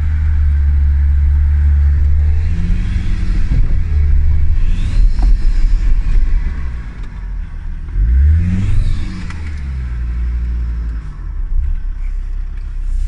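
Land Rover Defender engine running under load on a rough off-road track, heard from inside the cab. The revs rise and fall about eight seconds in.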